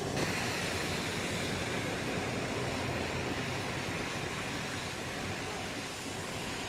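Rain falling steadily on wet marble paving, an even hiss with no break.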